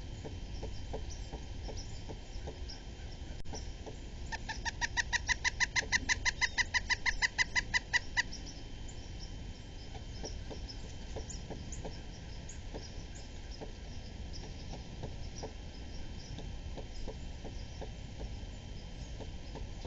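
Pileated woodpecker calling: one rapid run of about two dozen evenly spaced, ringing notes, about seven a second. It starts about four seconds in, swells over the first second and stops after about four seconds.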